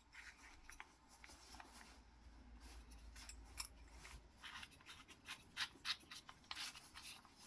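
Faint scattered clicks and light scraping from hands fitting an adapter onto a cordless ratchet; no motor running.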